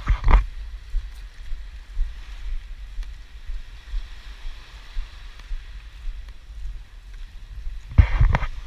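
Wind buffeting an action camera's microphone in an uneven low rumble, with small waves washing on a sandy shore under it. A louder burst of rumble and knocks comes about eight seconds in.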